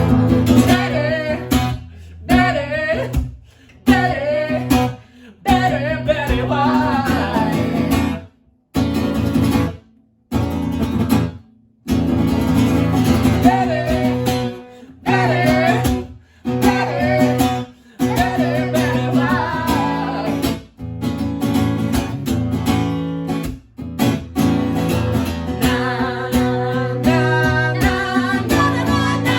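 A song: strummed acoustic guitar with a singing voice, broken by a few short pauses about a third of the way in.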